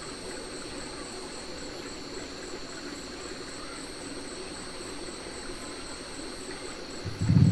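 Night insects, crickets, chirring steadily in a high continuous trill with a faster pulsing note above it, over a low even hiss of flowing water in a flooded ditch. A louder low sound comes in near the end.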